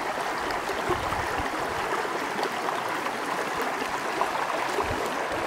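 Stream water running steadily, an even rush of flowing water.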